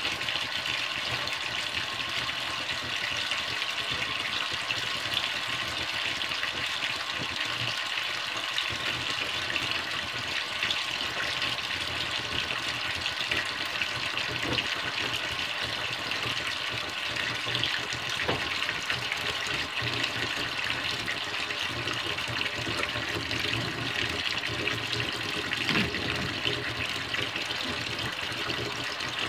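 Kitchen faucet running steadily into a stainless steel sink, with a few faint knocks of things being handled nearby.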